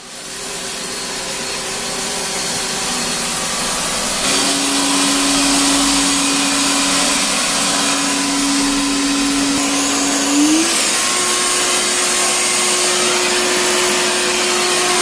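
Clien R9 robot vacuum's suction fan running loud and steady, with a whining hum. About ten seconds in, the hum glides up in pitch as the motor speeds up, typical of the suction being switched to a higher of its three power levels.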